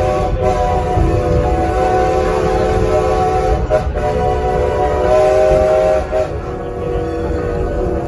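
Steam locomotive's chime whistle blowing long, drawn-out blasts, a steady chord of several notes that breaks briefly about four seconds in, over the low rumble of the passenger coach running on the rails.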